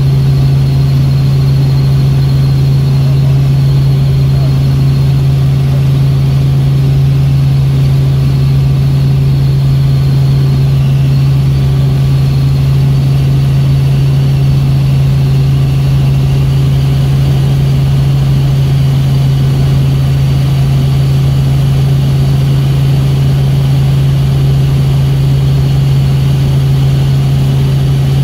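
Helicopter in cruise flight heard from inside the cabin: a loud, steady drone of engine and rotors with a strong low hum and a faint high whine above it.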